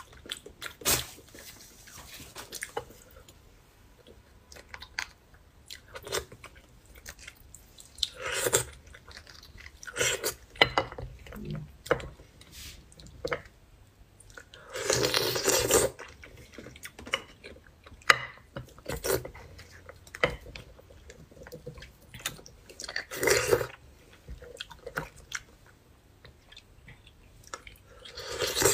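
Close-miked chewing and sucking of beef bone marrow. Small clicks run throughout as a metal pick works inside the bone, and there are several louder sucking sounds, the longest about halfway through.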